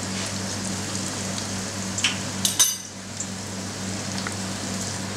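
A few sharp metal clinks about two to two and a half seconds in: stainless steel tongs and mixing bowl knocking together as a batter-dipped courgette flower is drained, over a steady low kitchen hum and hiss.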